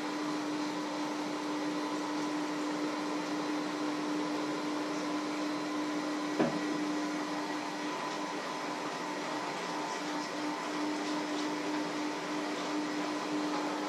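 Electric hand mixer running steadily in a bowl, a constant motor whirr with a steady hum, with a single sharp knock about six seconds in.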